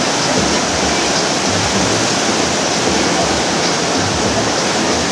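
Steady rushing of whitewater rapids, a loud, even roar of churning water.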